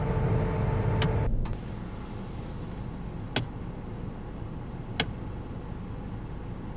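Low rumble of a stationary Hummer H3 idling, with a steady hum over it in the first second, then a quieter rumble. Sharp single clicks about a second in, near the middle and about five seconds in, as the headlights are switched between low and high beam.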